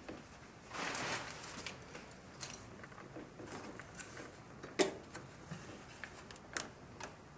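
Light clicks, taps and rustling of a motorcycle speedometer cluster being lifted and pushed off its mounting pins by hand, with two sharper clicks in the second half.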